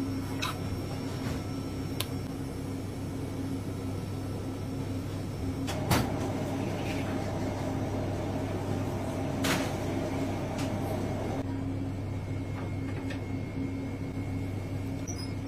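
Steady low hum of kitchen machinery, joined about six seconds in by a higher hum that cuts off sharply a few seconds later. A few sharp knocks and clicks are heard, the loudest about six seconds in, from knife and board work.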